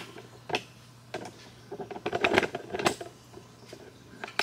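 Light metallic clicks and clinks of steel press tooling and a camshaft being handled and positioned on a hydraulic shop press, with a denser run of clatter in the middle.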